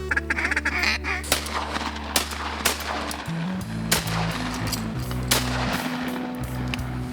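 Background music with a deep, held bass line that shifts pitch about three seconds in. Over it come several sharp, unevenly spaced shotgun blasts, a volley of shots at waterfowl.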